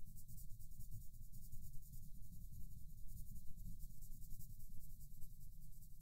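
Colored pencil scratching on paper in quick, rapid shading strokes, picked up close to the microphone.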